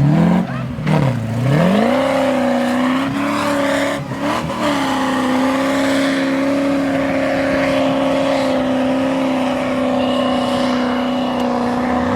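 Off-road 4x4 engine revving hard: it dips and rises over the first two seconds, then climbs and holds steady at high revs.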